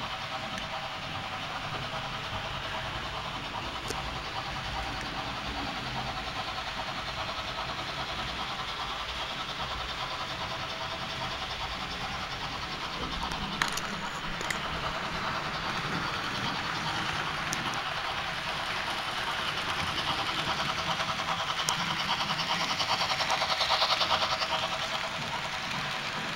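Model BR 01 steam locomotive and its coaches running on model railway track: a steady electric-motor hum with wheel-on-rail rumble, swelling louder as the train passes close by about 24 s in. A couple of sharp clicks sound about halfway through.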